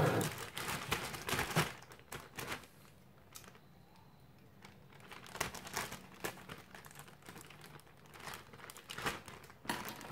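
Plastic bag of frozen chips crinkling as it is handled and cut open with scissors. The crinkling comes in bursts, with a quieter stretch a few seconds in.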